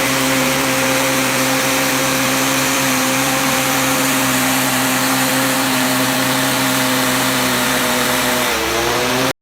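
High-pressure washer running: a steady motor hum under a hiss. Near the end the hum briefly dips in pitch, then the sound stops abruptly.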